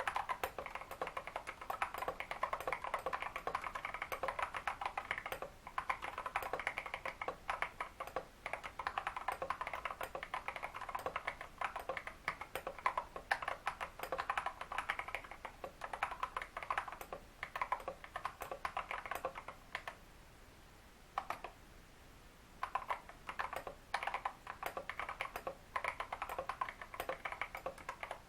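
Continuous fast typing on a Royal Kludge RK100 mechanical keyboard with lubed Feker Holy Panda tactile switches and XDA-profile keycaps, a dense stream of key clacks. The typing pauses for about two seconds a little past two-thirds of the way through, then resumes.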